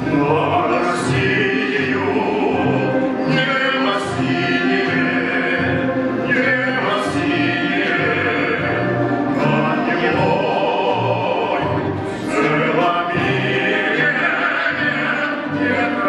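A female soloist singing in an operatic style with vibrato, accompanied by an orchestra of Russian folk instruments: plucked domras and balalaikas.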